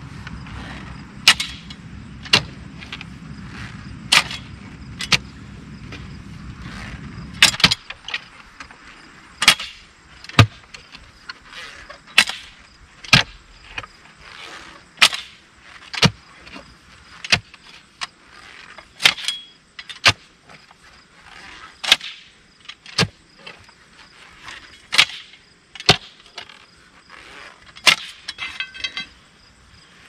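Hand digging in hard clay and rocky ground with a steel digging bar and a manual post hole digger: sharp strikes about once a second as the tools are jabbed into the hole, with a brief rapid run of clinks near the end. A low steady hum underneath stops abruptly about eight seconds in.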